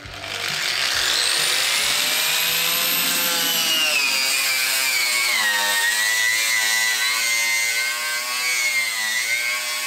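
Angle grinder spinning up to speed, then grinding surface rust off the steel underbody of a car. It runs steadily, its pitch dipping and wavering as it is pressed against the metal.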